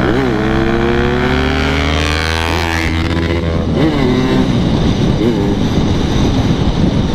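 Yamaha RX-King 135cc two-stroke single-cylinder engine running under way. Its pitch climbs and then drops back sharply several times as the throttle is worked, over a low wind rumble on the microphone.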